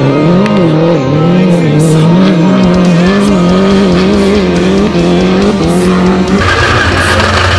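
Off-road race buggy engine running hard, its pitch rising and falling as the revs change. About six and a half seconds in the sound switches abruptly to a different, higher and harsher engine note.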